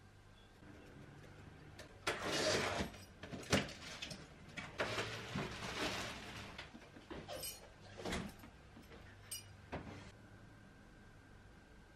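A run of household handling sounds: sharp clicks and knocks, with stretches of rustling or scraping about two seconds in and again around five to seven seconds in, over a faint steady hum.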